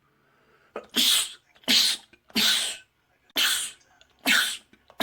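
A man sneezing five times in quick succession, each sneeze a short loud burst, with another starting right at the end.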